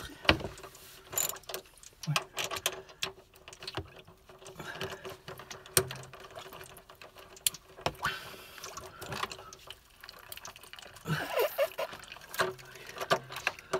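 Scattered clicks and metal taps of a hand tool working at an electric water heater's element and thermostat opening, over a faint steady hum.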